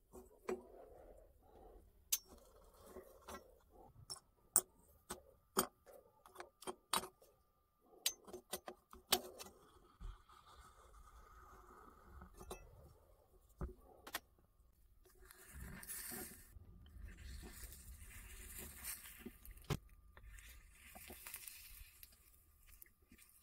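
Aluminium scrap pieces clinking and tapping against the crucible and each other as they are fed into a small electric melting furnace, with a steel tool scraping among them. In the second half comes a rough crackling hiss as a painted piece is pushed into the hot crucible and smokes.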